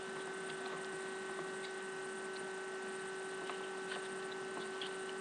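Steady electrical hum: one steady low tone with a fainter higher whine over background hiss, with a few faint ticks.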